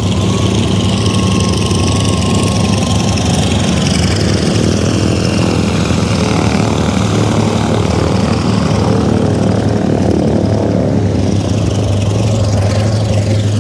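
Light propeller aircraft's piston engine running steadily at low power, a constant even engine note.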